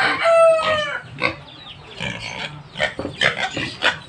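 Domestic pigs squealing and grunting at feeding time, hungry and eager for food, in a run of short, sharp calls. A rooster's crow ends with a long falling tail in the first second.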